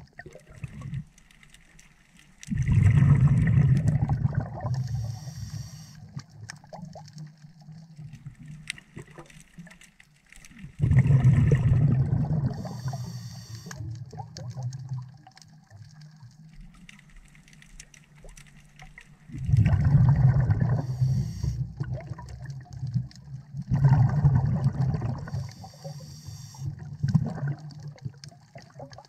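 Scuba diver breathing through a regulator, heard underwater: four loud rushes of exhaled bubbles, each lasting a couple of seconds and followed by a short, faint, high hiss.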